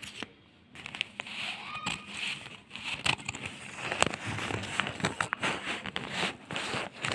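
Scissors cutting through a folded newspaper: the paper crackles and rustles, with many sharp snips, starting about a second in.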